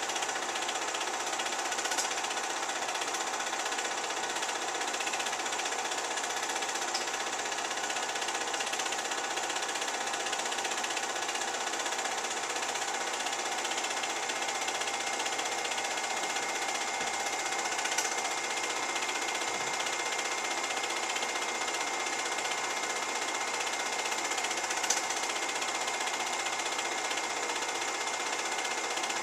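Film projector running with a steady mechanical whirr, broken by a few single sharp clicks.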